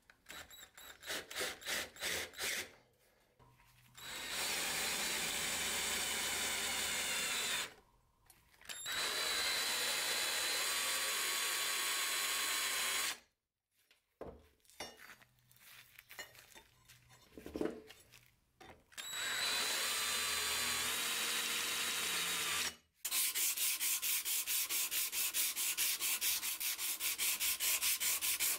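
Cordless drill running in three bursts of several seconds against a steel cleaver blade, with short irregular scraping strokes between the runs. About three-quarters of the way through it gives way to fast, even back-and-forth strokes of hand sanding along the blade with an abrasive strip.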